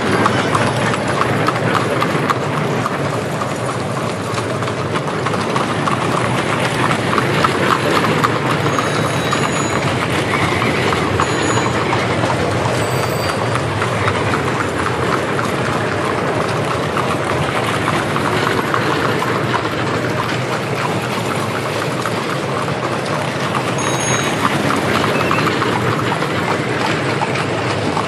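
Many horses' hooves clip-clopping at a trot along with the steady rolling rumble of carriage wheels: busy horse-drawn street traffic.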